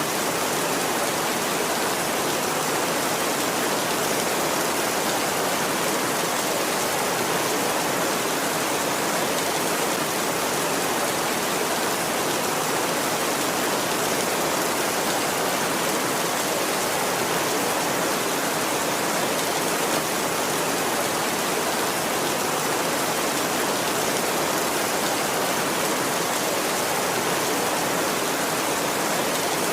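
Heavy rain falling steadily on a tin roof, an even rushing patter with no thunder.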